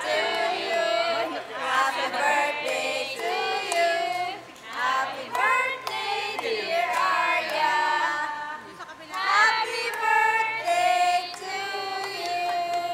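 A group of adults and children singing a birthday song together, with a long held note near the end.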